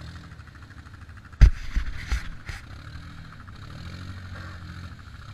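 Quad (ATV) engine running at low revs, its pitch drifting a little. A loud sharp knock comes about one and a half seconds in, followed by a few more knocks over the next second.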